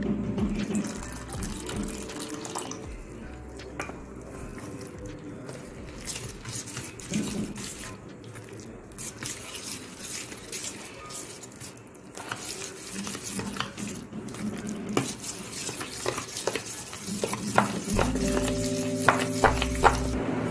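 Steel spoon stirring wet cheela batter in a stainless steel bowl: squelching mixed with clinks and scrapes of the spoon against the bowl. The clinks get busier and louder near the end.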